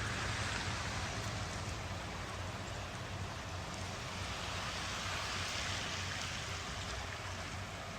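Steady rush of running water, an even noise with no distinct events.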